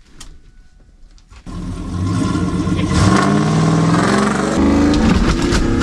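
A vehicle's engine suddenly revs up about a second and a half in and stays loud, pulling on a tow strap to tear a section of the motorhome's wall away.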